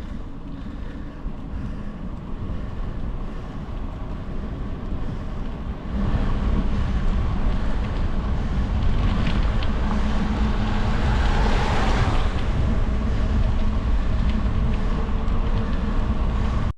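Wind rushing over the microphone and tyre noise during a bike ride. The noise jumps louder about six seconds in and swells briefly near the middle of the louder stretch.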